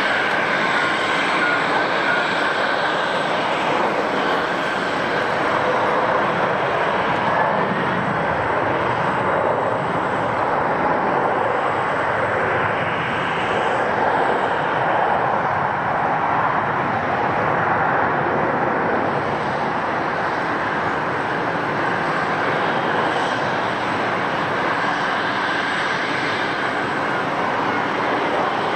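Jet airliner engines running: a steady, continuous rush of engine noise that holds at the same level throughout.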